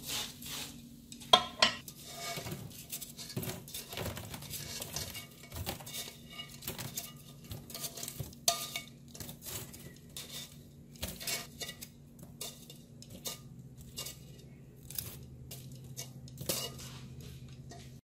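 Irregular clinks, taps and scrapes of a utensil against a non-stick frying pan as dry, sugar-crusted candied ginger slices are stirred, then tipped out onto a woven bamboo tray. A low steady hum runs underneath.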